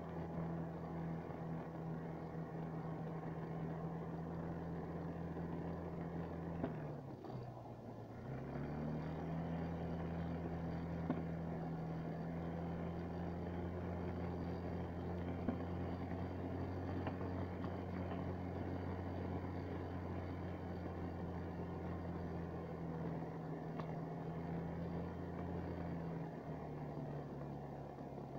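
Snowmobile engine running at a steady cruising speed. About seven seconds in the throttle eases off, so the pitch drops and then climbs back up, and it steps down slightly again near the end.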